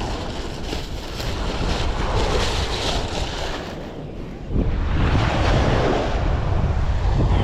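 Wind buffeting the microphone over the wash of sea waves, a rough rumbling noise that grows louder about four and a half seconds in.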